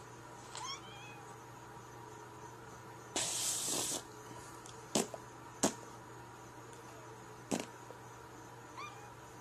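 A tabby kitten gives faint, high, rising mews, one near the start and one near the end. About three seconds in there is a short breathy hiss lasting under a second, and in the middle come three sharp smacking clicks.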